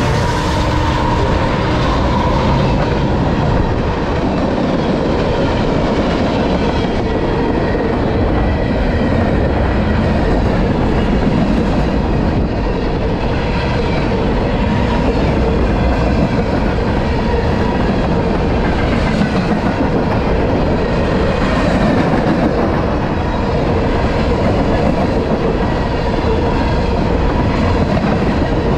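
A long freight train passing at a level crossing: the last of its four lead diesel locomotives go by at the start, then the freight cars follow with a steady clickety-clack of wheels. A steady ringing tone, most likely the crossing's warning bell, sounds throughout.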